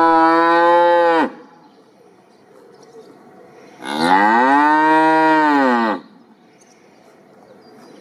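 Cow mooing: the end of one long moo, then a second long moo starting about four seconds in that rises and falls in pitch over about two seconds.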